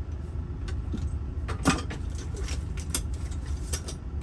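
Small metal tools and lock parts clinking and clicking as they are handled, with one sharper clink about a second and a half in, over a steady low rumble.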